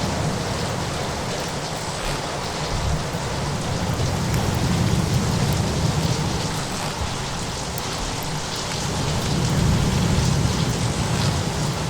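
Steady heavy rain with a patter of drops, over low rumbling swells that rise and fall twice: a layered storm ambience of rain with thunder or surf.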